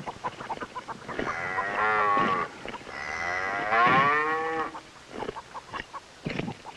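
A young cow sick with rabies mooing twice: two long, slightly falling calls, the second louder and longer.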